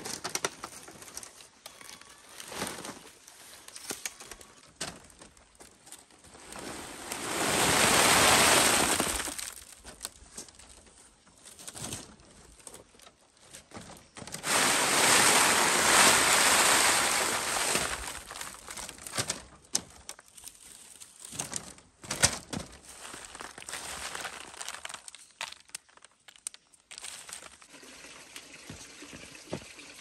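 Sun-dried tuber slices sliding off a woven bamboo mat and pouring into a bamboo basket: two long pours, one about a quarter of the way in and a longer one around halfway, with scattered clicks and rustles of the slices and mat being handled between.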